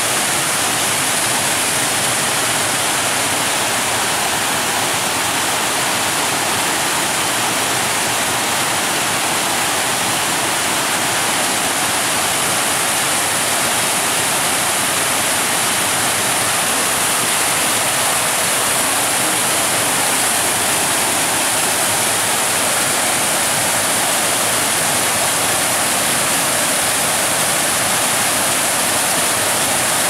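Waterfall: water spilling over a wide, tiered cascade of many small falls into pools, a loud, steady rushing without let-up.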